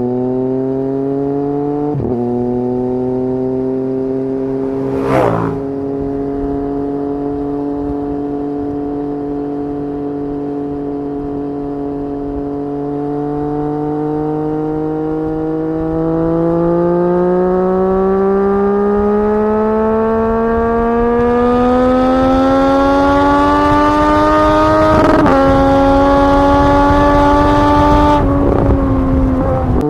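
Triumph Street Triple 765's inline three-cylinder engine, heard from the rider's seat, running at a steady cruise and then pulling in a long, slow rise in pitch. There is a brief break in the note around 25 seconds, the throttle closes near the end, and a sharp click comes about five seconds in. Wind noise grows as the speed builds.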